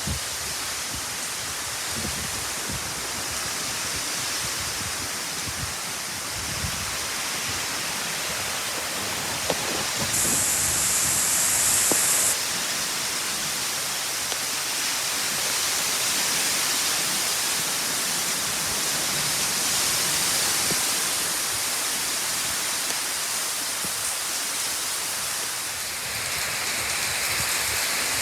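Heavy typhoon rain pouring down as a steady, dense hiss, growing briefly louder and sharper for about two seconds near the middle.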